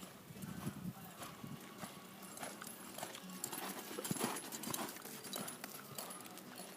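A horse's hoofbeats: many sharp, irregularly spaced knocks as it moves.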